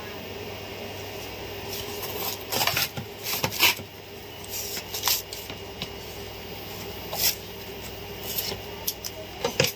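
A parcel's packaging being cut open with scissors and handled: irregular snips, crinkles and scrapes, coming in clusters, over a faint steady hum.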